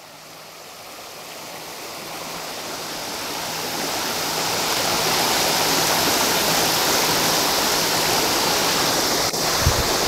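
Creek water rushing over rocks in a riffle, a steady hiss that swells over the first few seconds and then holds. A small click and a low thump come near the end.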